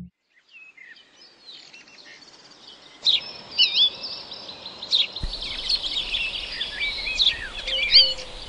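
Small birds chirping, many short high-pitched calls overlapping, faint at first and louder from about three seconds in, over a steady low background noise.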